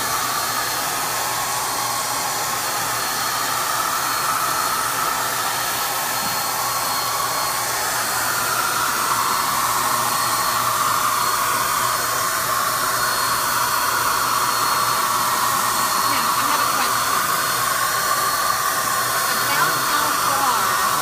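Handheld electric paint sprayer running continuously as paint is sprayed onto a cabinet door: its motor blows air through the gun in a steady whooshing hiss with a whine. About halfway through the whine rises a little and gets slightly louder.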